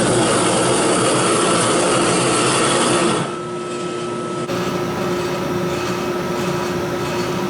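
Coke forge's air blower running with a steady rush of air and a faint hum. The level drops suddenly about three seconds in.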